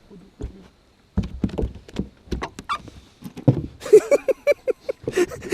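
Knocks and thuds against a small fishing boat while a hooked fish is being fought, then a quick string of short pitched sounds with a hiss over the last two seconds.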